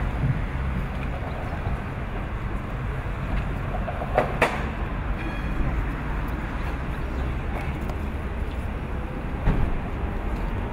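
Outdoor city ambience while a crowd stands in silence: a steady low rumble of distant traffic and wind, with a brief clatter about four seconds in and a single knock near the end.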